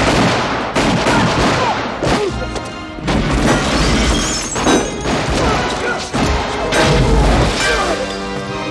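Film action soundtrack: loud score music over repeated booms and crashes as things are blown apart in a shootout, the music alone carrying on near the end.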